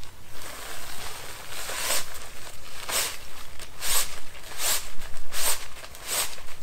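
Nylon camping hammock being handled and adjusted: a series of short fabric swishes and rustles, about one a second.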